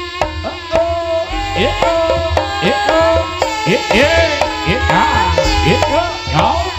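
Live Javanese folk-dance accompaniment: hand-struck drums playing quick strokes that bend up in pitch, over a sustained melody line that moves between held notes.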